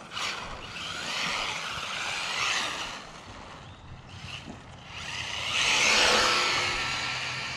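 Battery-powered RC drift truck running on pavement: motor whine and tyre noise swell twice, loudest about six seconds in, then fade.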